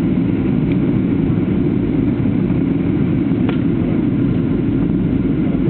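Steady airliner cabin noise on the approach to landing: jet engines and rushing air heard from inside the passenger cabin, an even low drone, with a faint click about three and a half seconds in.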